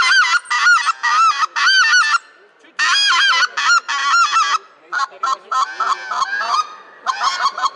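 Mouth-blown goose call, a hand-cupped adjustable reed call, sounding runs of short sharp goose honks. There is a brief pause about two seconds in, softer shorter notes around the middle, and a faster series of honks near the end.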